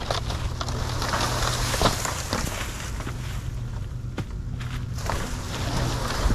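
A motor vehicle's engine running steadily under a rush of wind noise, with a few light knocks and rattles.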